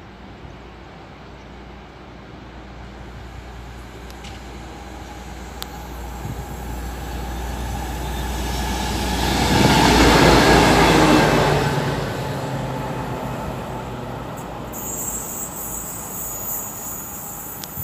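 A pair of coupled diesel locomotives approaching and passing, the engine drone and rail noise building to a peak about ten seconds in and then fading away. A high-pitched hiss comes near the end.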